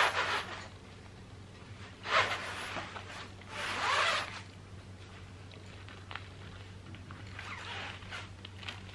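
A belt being pulled out through the belt loops of denim jeans: a few rasping, zipper-like slides, the longest about three and a half to four and a half seconds in, with fainter ones near the end.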